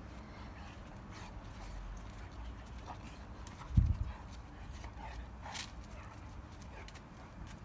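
Two young Tibetan Mastiffs play-fighting: scuffling paws and claws on brick paving with a few brief dog snarls, and one dull low thump about four seconds in.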